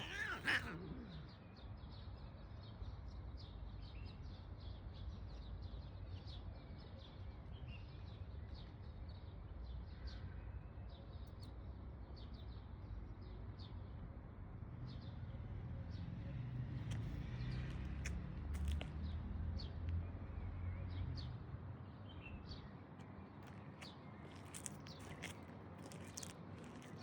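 Small birds chirping in many short, repeated notes over a steady low rumble. About half a second in, a louder short cry falls sharply in pitch.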